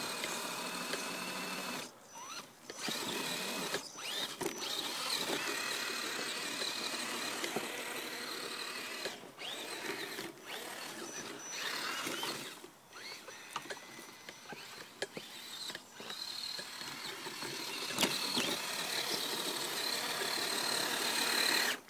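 Axial SCX10 Trail Honcho RC crawler's electric motor and gear drivetrain whining as it crawls through snow, cutting out briefly several times as the throttle is let off and picking up again.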